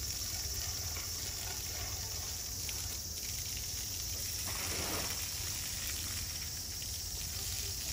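Water from a hose spraying and splashing onto an elephant's feet and the ground, a steady hiss. About halfway through comes a louder whoosh of spray.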